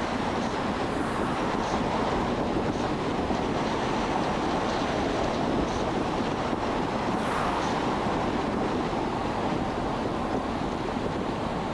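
Steady road noise of a car driving at speed: tyres rolling on the pavement and air rushing past, an even rushing sound with no breaks.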